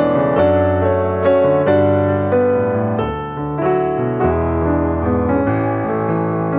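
Background music: a steady run of melodic notes over held low notes.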